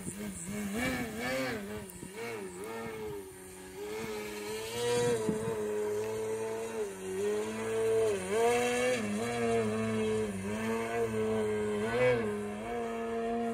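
Electric motor and carbon propeller of an RC aerobatic Extra 260 plane (T-Motor AM670 motor, 18x8 prop) in flight: a droning buzz whose pitch rises and falls again and again with throttle and manoeuvres, swelling louder at times.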